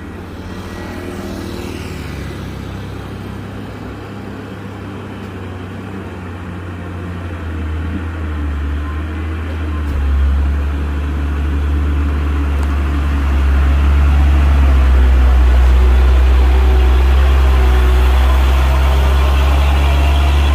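Heavy truck's diesel engine running, a deep steady drone that grows louder as the truck draws near, stepping up in loudness about eight and thirteen seconds in.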